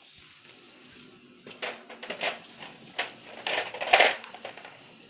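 Plastic toys being handled: a run of short clattering and rustling knocks starting about a second and a half in, the loudest about four seconds in.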